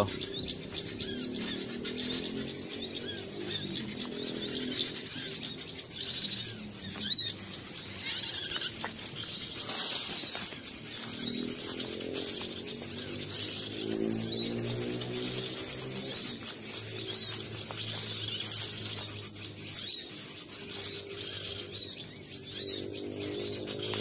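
A dense chorus of high chirping from many birds and insects, with fainter, lower repeated calls underneath.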